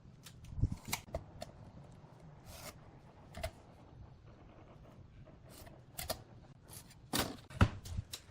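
Irregular light knocks, taps and short scrapes of wood being handled and worked by hand, with the loudest knocks near the end.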